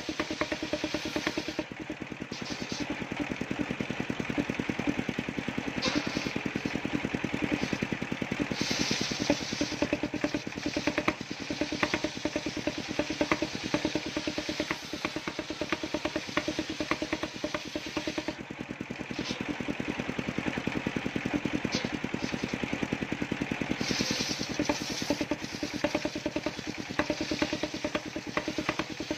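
Engine-driven circular sawmill running, its large blade ripping a log lengthwise: a steady engine note with the hiss of the cut, which brightens at times and briefly eases as the log is fed through.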